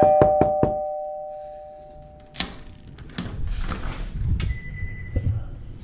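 A two-note doorbell chime (ding-dong) fading out, over rapid knocks on the door that stop less than a second in. About two and a half seconds in, the door latch clacks and the front door is opened, with rustling and handling noise after it.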